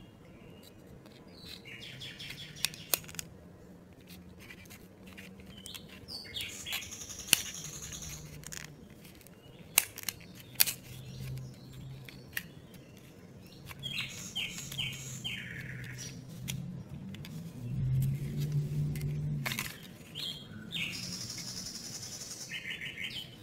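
Stiff printed-cardboard 3D puzzle pieces being handled and slotted together: scattered sharp clicks and snaps, with short high squeaky scrapes as the tabs rub into their slots.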